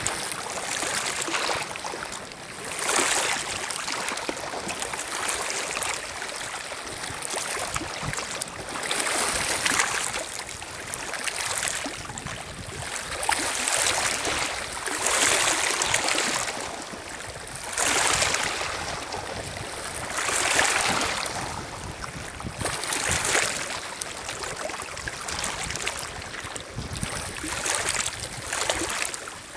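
Small lake waves lapping and washing over a stony shore, swelling and easing about every two to three seconds.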